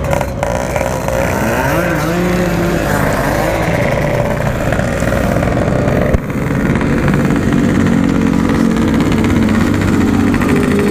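Yamaha RX-King's two-stroke single-cylinder engine running while riding, through a standard-style Packing Power exhaust. Its pitch climbs about two seconds in, then holds steady, with a brief dip about six seconds in.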